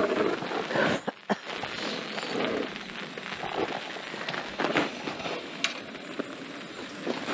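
Rain pattering and wind rushing over the microphone, with scattered sharp clicks.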